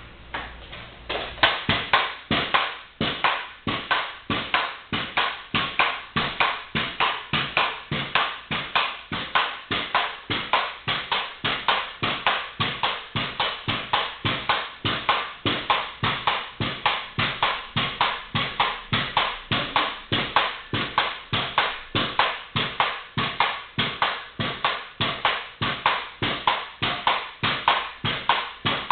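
Pogo stick (a moon stick) bouncing continuously on a concrete floor: an even rhythm of sharp thuds, about two to three jumps a second, starting about a second in.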